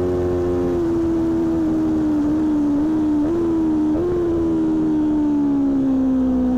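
Aprilia Tuono V4 1100's V4 engine running at speed on track, heard from a fairing-mounted mic that distorts it a little. The engine note slowly sinks over several seconds, with two short rises in pitch about three and four seconds in.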